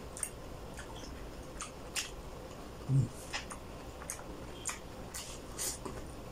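Close-miked wet chewing of juicy orange segments: scattered small smacks and clicks from the mouth, with one louder low thump about three seconds in.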